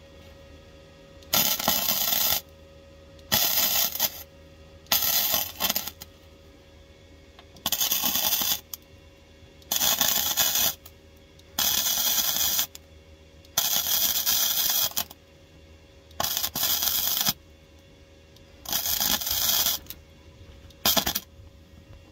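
MIG welder arc crackling on the steel rear floor pan of a Ford Cortina Mk4, in about ten short bursts of roughly a second each with brief pauses between: stitch welding a rust repair patch.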